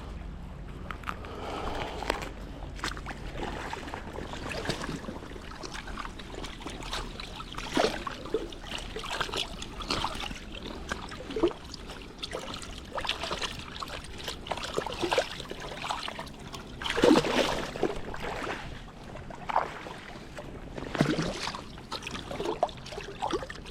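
Shallow creek water splashing and sloshing in irregular bursts as a large silver (coho) salmon is landed, with the loudest splashes in the second half.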